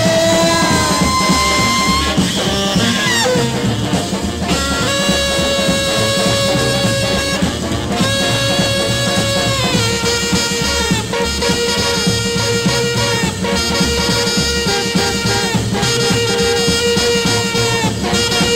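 Instrumental break of a rock 'n' roll record: a saxophone plays long held notes of about two seconds each over a band keeping a steady beat.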